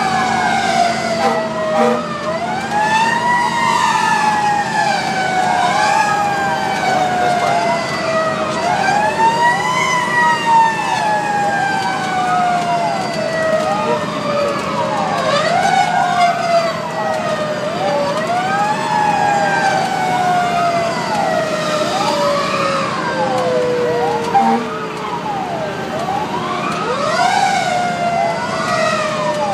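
Fire truck sirens heard from inside the cab as the truck runs on a call. One siren cycles in a quick rise and fall about every two seconds. Over it, a second, lower siren tone slides slowly down and is brought back up every several seconds.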